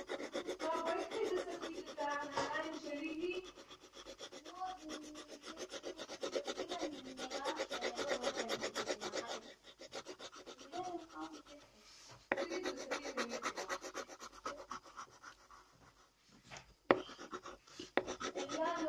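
Coloured pencil shading on paper in quick back-and-forth strokes: a rapid dry scratching that pauses briefly a few times. A single sharp tap comes near the end.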